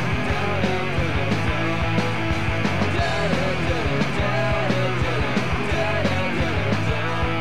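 Instrumental passage of a guitar-band rock song: electric guitars, bass guitar and drums playing over a steady beat, with a melodic lead line bending up and down in pitch.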